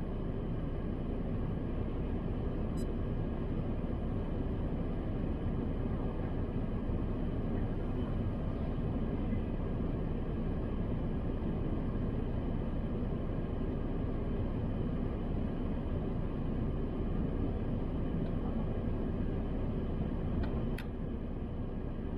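Steady low rumble and hiss inside a parked car's cabin, with the engine idling and a few faint steady tones over it. The level dips slightly near the end, followed by a single short click.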